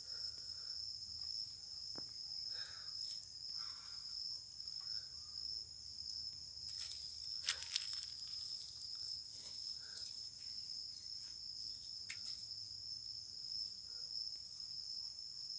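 Steady high-pitched insect chirring, with a few faint clicks and taps.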